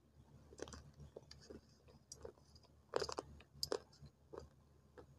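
Close-up crunching of dried Fuller's earth (multani mitti) clay being bitten and chewed: irregular sharp cracks, busiest about three seconds in, over a faint low hum.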